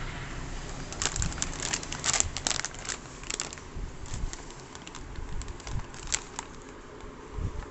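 Plastic packets of Neeta henna hair colour being handled and crinkling: a flurry of sharp crackles starting about a second in, then scattered crinkles that die away past the middle.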